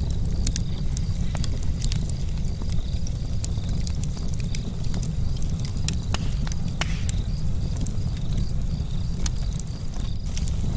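Charcoal campfire crackling, with irregular sharp pops and ticks over a steady low rumble.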